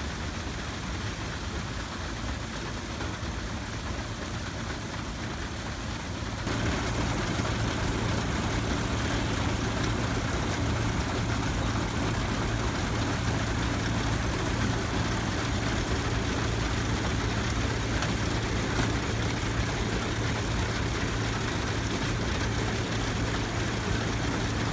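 Steady drone of an engine running antique machinery, with a constant low hum. It gets louder about six and a half seconds in.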